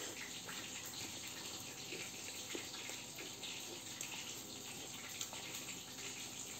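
Quiet mealtime: a faint, steady hiss with a few soft clicks and taps of someone eating by hand from a plate.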